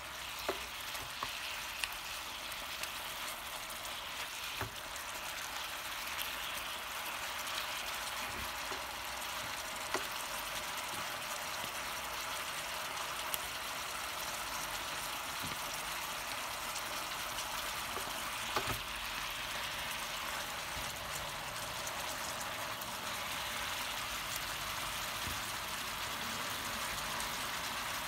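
Chicken pieces cooking in a pan of sauce with a little added water: a steady sizzling and bubbling hiss, with a few small sharp pops.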